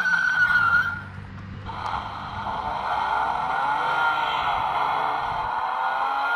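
Electronic car sound effects played through the small speaker of a Ferbedo X pedal kart's toy steering wheel as its buttons are pressed: a tinny racing-car and skidding-tyre sound. It breaks off briefly about a second in, then another effect runs on.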